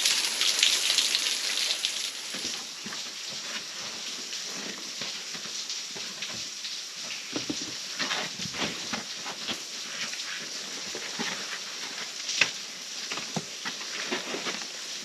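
Small waterfall splashing, louder for the first two seconds and then fainter, with scattered scuffs and knocks of footsteps on rock.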